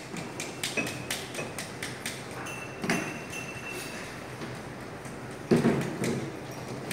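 Small clicks and knocks of bottles and tools being handled on a bench, with a louder thud about five and a half seconds in.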